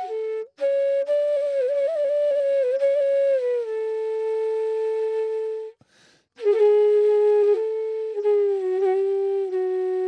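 Background music: a slow solo melody on a flute-like wind instrument, with long held notes and small pitch bends. It breaks off briefly about six seconds in, then goes on.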